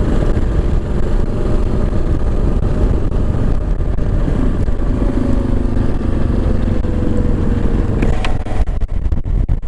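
Kawasaki KLR 650 dual-sport motorcycle being ridden: its single-cylinder engine running under a heavy low wind rumble on the microphone, the engine note sinking slightly over the second half.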